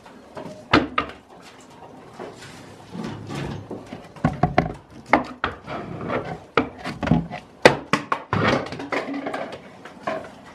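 A run of knocks, thumps and scrapes on a wooden shelf as a goat nosings up against the microphone, the loudest knocks about a second in and again about eight seconds in.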